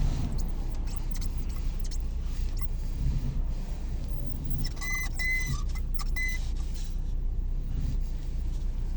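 Steering of a 2023 Lada Granta Cross creaking as the wheel is turned in frost. There are scattered clicks in the first second or so, then three short, high squeaks around the middle, over the car's steady low rumble. The creak only appears in frosty weather, and its cause is unknown to the owner.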